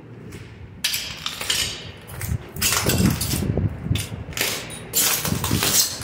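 Footsteps in snow boots crunching and scraping over a bare floor, in uneven loud bursts.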